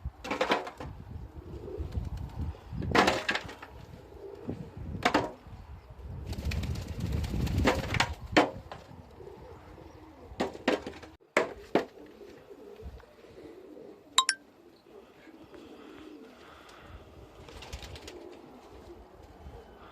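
Pigeons cooing, with several sharp knocks and a low rumble in the first half and a brief thin high call about fourteen seconds in.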